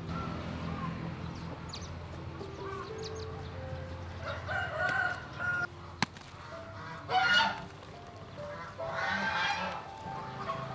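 A rooster crowing and chickens calling, three calls between about four and ten seconds in, the middle one loudest, over soft background music. A single sharp click about six seconds in.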